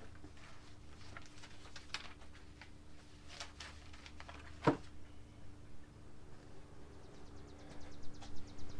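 Hand tools being handled during a coil-pack refit: scattered faint clicks and light knocks, one sharper click about halfway, and a quick, even run of light ticks near the end.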